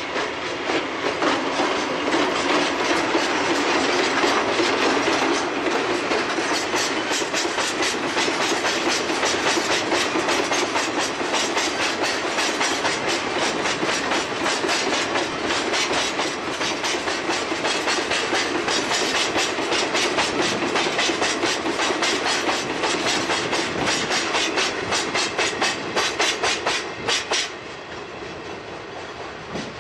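A freight train of Chichibu Railway Woki 100 hopper wagons loaded with ore, hauled by a Deki electric locomotive, rolling past with a rapid, steady clickety-clack of wheels over rail joints. The clatter stops abruptly near the end as the last wagons go by.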